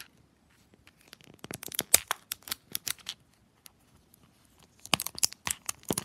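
Plastic shrink wrap being picked at and peeled off a toy package, crackling and crinkling in two spells: one about one and a half to three seconds in, and another near the end.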